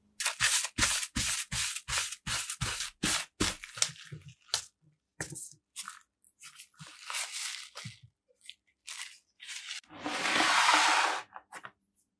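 Quick scraping strokes, about three a second for the first few seconds, then scattered single strokes, and a steady hiss lasting a little over a second near the end.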